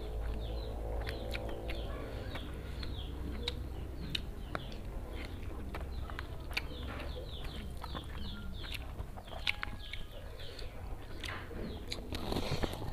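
Many short falling chirps from birds in the background, over eating noises: clicks and rustles of food and a paper wrapper being handled by hand, chewing, and a louder burst of noodle slurping near the end.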